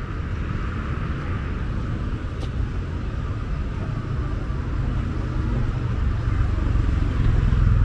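Road traffic passing on a city street: a steady engine and tyre rumble that grows louder over the last couple of seconds as a vehicle draws close.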